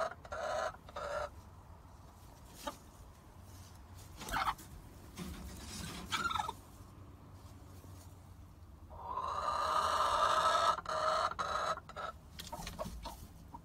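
Backyard hens clucking in short calls, with one long, loud squawk about nine seconds in, then a few more clucks.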